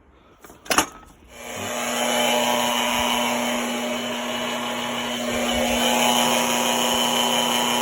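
A sharp click, then a small electric motor starts about a second and a half in and runs steadily with a constant hum, like a power tool running.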